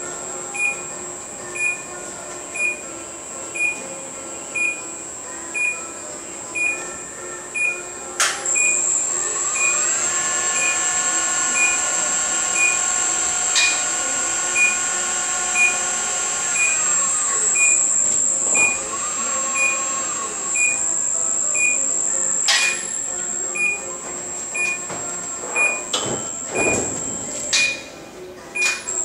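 Electric drive of an automated greenhouse bench-transport machine running as it moves a bench of potted plants: its whine rises in pitch, holds, then falls back, with a few sharp clunks from the mechanism. A warning beeper sounds about once a second throughout.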